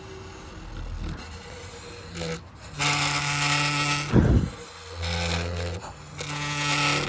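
A rotting cedar plank played like a giant daxophone, a piece of wood rubbed along its edge. After faint scraping come three drawn-out pitched tones, and a loud low sound falling in pitch about four seconds in, between the first and second tones.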